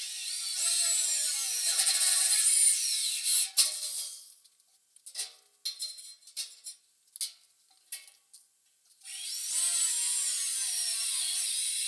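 A handheld power tool runs under load in two stretches, its pitch sagging as it bites into metal. Between the runs come scattered clanks and knocks of metal parts being handled.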